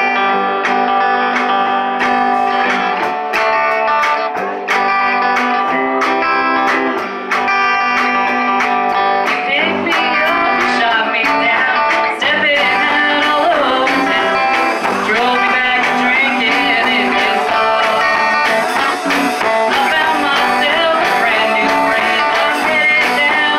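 Live band playing a blues-tinged song on electric guitar, bass guitar and drums with a steady beat. A woman starts singing about ten seconds in.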